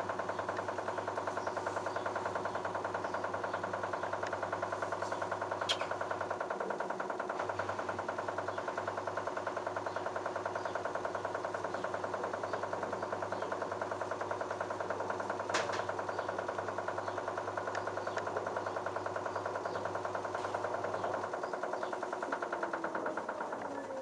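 LG F1222TD direct-drive washing machine running mid-cycle, a steady machine sound with rapid pulsing over a low hum. The hum drops out briefly about six seconds in and stops near the end, where the sound winds down. There are two sharp clicks, one about six seconds in and one about sixteen seconds in.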